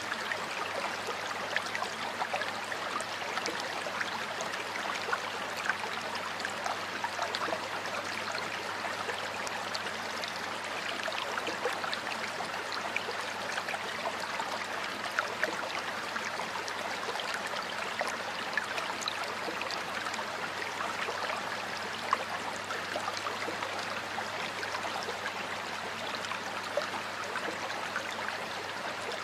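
A stream running steadily over rocks, a continuous babble of water with small splashes and gurgles flickering through it.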